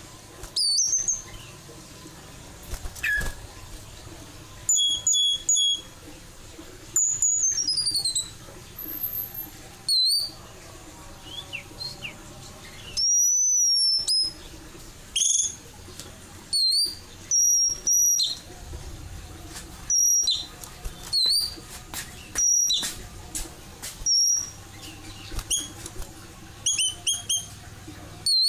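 White-crowned forktail (meninting besar) giving loud, shrill, short whistled calls again and again, each note sliding steeply up or down, with one longer drawn-out call about halfway through.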